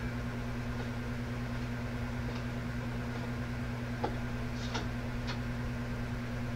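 Electric fan running with a steady low hum, with a few faint ticks scattered through.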